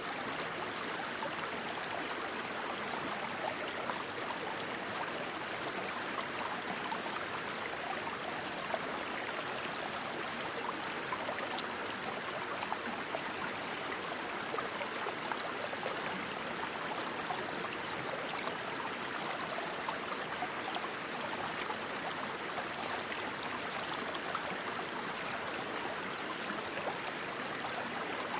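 Stream water rushing and splashing steadily. Short high chirps are scattered through it, with a brief rapid trill about two seconds in and again near the end.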